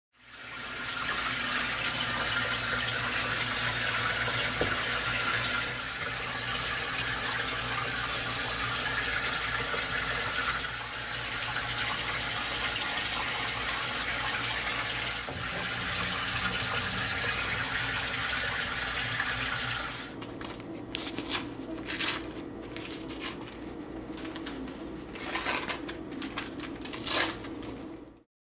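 Kitchen tap running steadily for about twenty seconds. It then stops, leaving quieter scattered clicks and knocks of handling on the counter.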